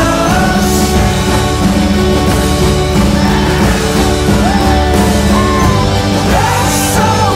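Rock music playing at a loud, even level, with a melodic line that slides in pitch over the band.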